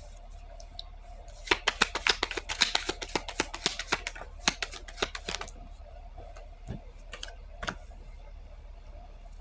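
A quick, uneven run of sharp clicks for about four seconds, then three single clicks spaced about half a second apart.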